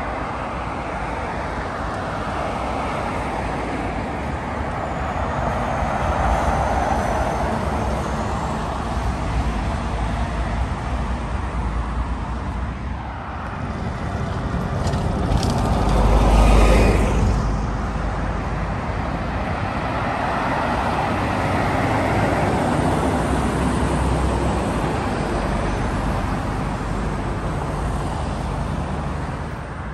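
Road traffic passing: cars, vans, a double-decker bus and heavy lorries go by with tyre and engine noise, and one louder, deeper pass-by swells up and fades a little past halfway.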